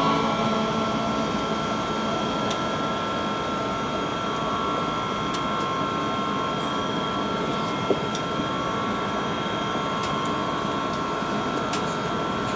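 Airbus A380's Rolls-Royce Trent 970 engines idling, heard from inside the cabin: a steady hum with several steady whining tones, faint clicks, and a light knock about eight seconds in.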